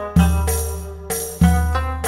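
Instrumental background music with a deep bass note struck twice and a melody of pitched notes above it.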